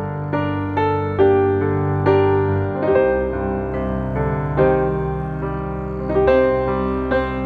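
Background music: solo piano playing a gentle melody, notes struck about every half second over held bass notes.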